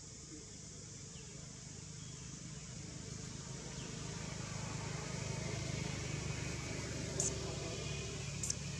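A distant motor vehicle engine's low hum, growing steadily louder over several seconds, over a steady high hiss. A few short, high chirps come near the end.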